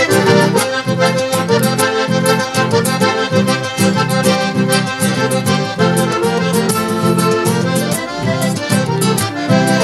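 Accordion playing the melody of an instrumental break in a gaúcho song, with band accompaniment and a steady, bouncing bass beat underneath.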